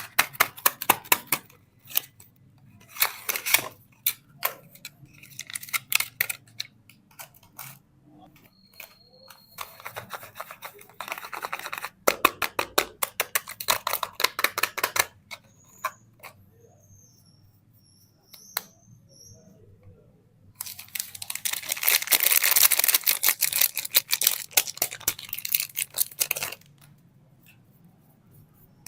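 Soap packaging being opened by hand: runs of sharp crackling clicks from a stiff wrapper, and in the last third a longer, louder stretch of dense crinkling and rustling as the wrapping is torn and pulled off.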